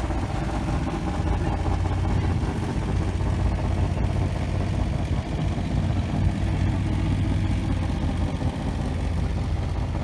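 Motor vehicle engine running steadily at idle, a low even hum.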